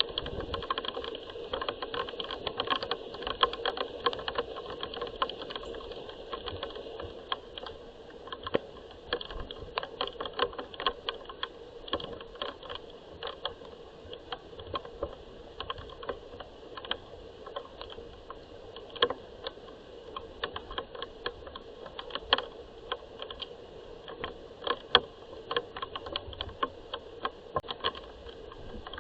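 Rain falling, with many irregular taps and drips of raindrops striking a hard surface over a steady background hiss.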